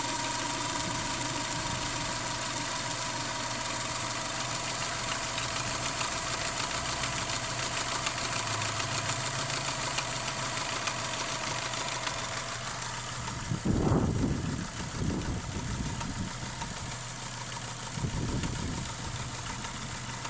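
Subaru flat-four engine idling with a steady knocking from the timing belt's hydraulic tensioner, which has failed. A louder low rumble comes in about two-thirds of the way through, and another near the end.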